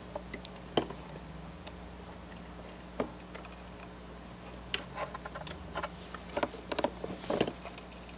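Light, scattered clicks and taps of hands handling parts at the hinge edge of a Panasonic Toughbook CF-30 laptop, a few at first and busier in the second half.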